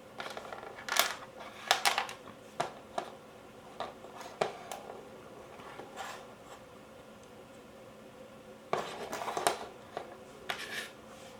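Metal and plastic parts of a Cyma CM040 airsoft AK being handled and fitted, giving sharp clicks, clinks and light knocks in irregular clusters, with a faint steady hum underneath.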